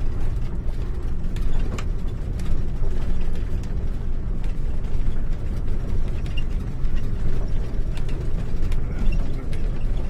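A motorhome driving on a bumpy unpaved dirt road, heard from inside the cab: a steady low rumble with irregular rattles and clicks from the vehicle.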